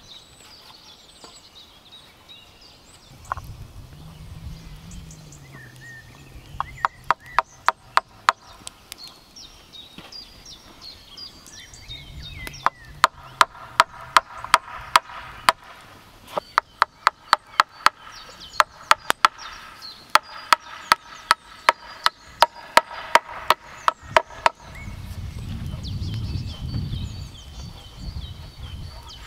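A hammer driving nails into the boards of a wooden concrete form, in three runs of quick, ringing strikes, a few a second. Birds chirp in the background, and there is a low rumble near the end.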